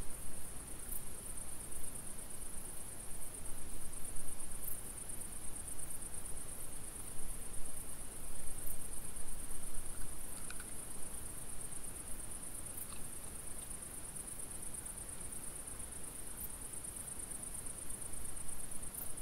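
Crickets trilling continuously in a high, steady, finely pulsing band over low background hiss, with a few faint short squeaks about halfway through.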